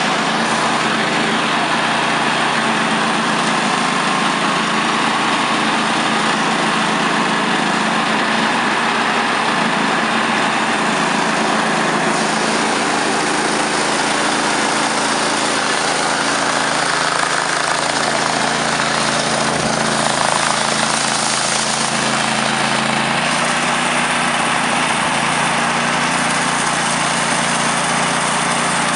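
Industrial sawmill running steadily, its engine humming under the loud noise of the saw cutting a slice off a maple log. The high sawing noise grows stronger about twelve seconds in.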